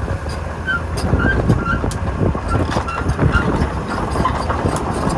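Sumitomo SH200 excavator running, its diesel engine droning under frequent metal clanks and knocks and short high squeaks.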